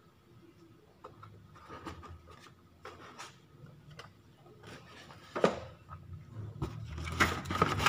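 Cardboard boxes and packed parts rubbing, scraping and knocking lightly as they are shifted by hand, with a sharper knock about five seconds in and busier handling near the end.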